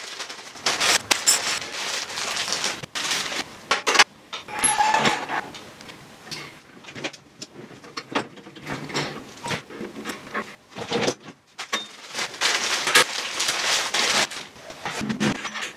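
Plastic parts bags crinkling as they are opened, with the clicks and taps of small parts and a screwdriver being handled, coming and going with short pauses.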